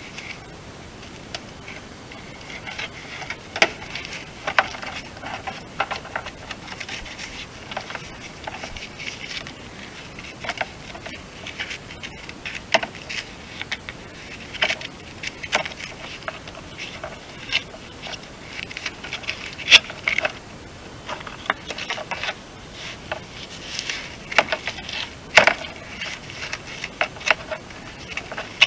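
Close handling noise at a car's front wheel arch: irregular clicks, scrapes and rustles, with a few sharper clicks scattered through.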